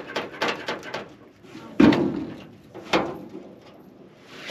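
A loose, rusted steel car hood being handled on grass. It rattles and scrapes for about the first second, then bangs twice, about a second apart, the first bang the louder.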